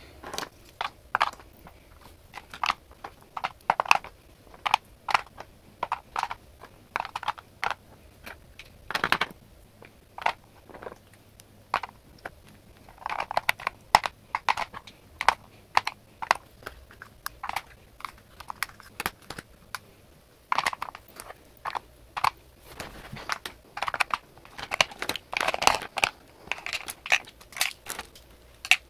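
Plastic makeup tubes, pencils and compacts clicking and clattering as they are handled and set down one by one into a clear acrylic organizer: a long string of sharp little knocks, bunched in busier spells near the middle and towards the end.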